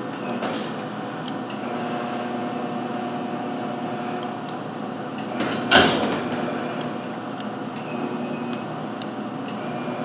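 Steady electrical-mechanical hum of an industrial ultrasonic cleaning system and its basket-handling robot, with a few held tones that shift slightly partway through. A single brief knock about six seconds in.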